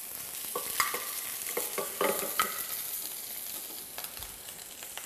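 Prawns sizzling in a hot frying pan over high heat, with a metal spoon clinking and scraping against the pan several times in the first half as they are sautéed.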